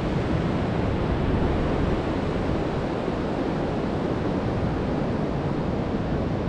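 Ocean surf breaking along a sandy beach, a steady wash of noise, with some wind on the microphone.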